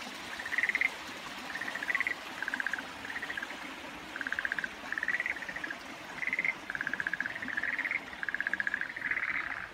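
A chorus of frogs calling: more than a dozen short trills of rapid pulses, with several frogs overlapping and answering one another at two slightly different pitches.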